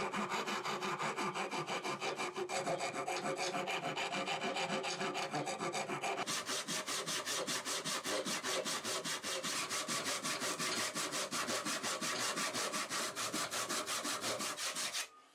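A flat file rasping back and forth across the end of a wooden hammer handle. About six seconds in, it gives way to a hand saw cutting through the wooden handle in fast, even strokes, which stop abruptly near the end.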